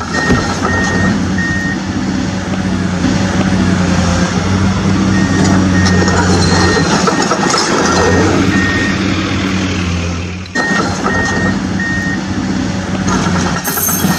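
Vehicle reversing alarm beeping in runs of about two beeps a second, with pauses between runs, over a steady truck engine drone. The sound cuts out briefly about ten and a half seconds in, then the engine and beeping resume.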